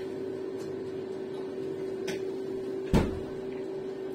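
Air fryer running with a steady hum. A single sharp knock about three seconds in is the loudest moment, with a couple of faint clicks before it.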